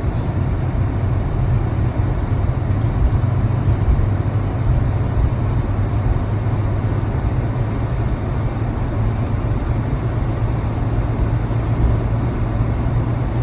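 Car engine idling, a steady low drone through the exhaust. The owner hears a tremble and a little rattle from the exhaust, which he says is not the freshly repaired muffler.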